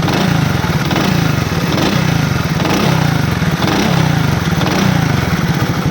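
Motorcycle engine running, its pitch repeatedly rising and falling about once a second as the throttle is blipped. No knocking is heard: the loose magneto rotor nut that caused the knock under acceleration has just been tightened.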